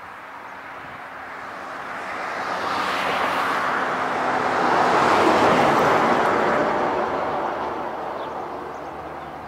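A road vehicle passing close by: its steady noise swells to a peak about halfway through and then fades away.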